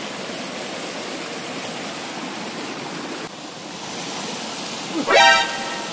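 Shallow rocky stream rushing steadily over stones. About five seconds in comes one short, rising vocal cry.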